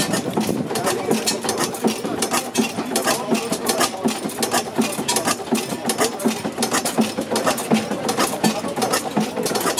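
Kappel stationary gas engine running steadily, with a quick, even rhythm of mechanical clicks.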